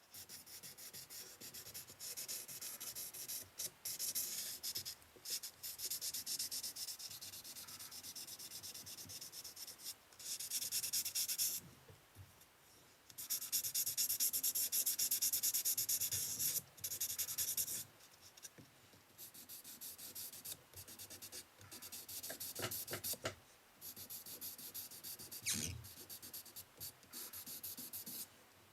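Wet sanding of a fork with waterproof sandpaper: a scratchy rubbing hiss that comes in stop-start spells with short pauses, loudest about halfway through.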